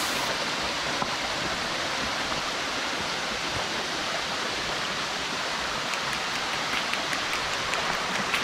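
Rushing water of a canyon stream, a steady, even rush.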